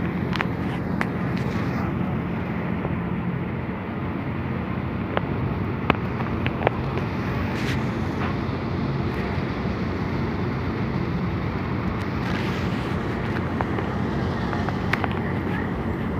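Passenger ferry's engines giving a steady low drone as the ship backs away from the pier; a couple of sharp clicks about six seconds in.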